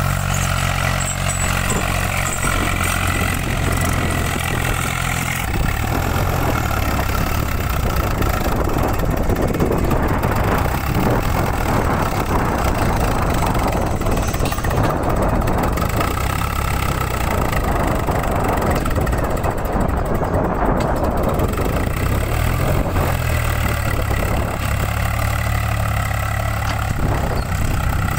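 Swaraj 735 XT tractor's three-cylinder diesel engine running steadily, then from about six seconds in working hard and rough under heavy load as it drags a loaded soil trailer through soft mud, its front wheels lifting. Near the end it settles back to a steady run.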